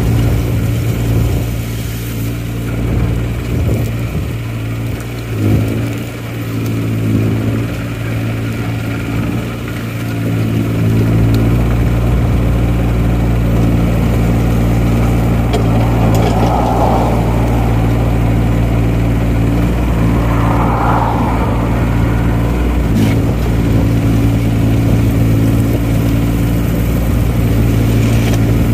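JCB 8018 mini excavator's diesel engine running at a steady speed under light work; the low rumble becomes fuller and steadier about eleven seconds in. Two brief higher rushing sounds come past the middle.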